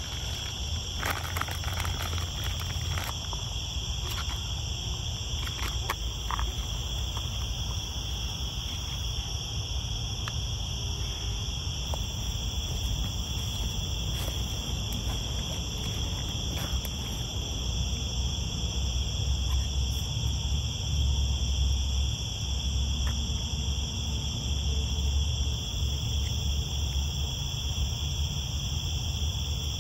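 Steady chorus of night insects, a continuous high trill at two pitches, over a low rumble. A few light clicks and knocks sound in the first several seconds.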